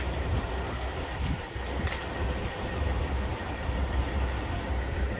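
Heavy diesel truck engine idling: a steady low rumble.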